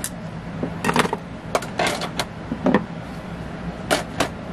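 Scattered sharp clicks and knocks of small metal tools and parts being handled at a drill press, about eight in four seconds, over a steady low hum.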